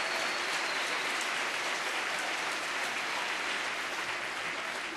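Audience applauding, a steady dense patter of clapping that slowly eases off.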